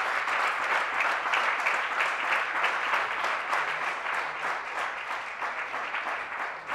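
Audience applauding, a dense steady clapping that eases off slightly toward the end.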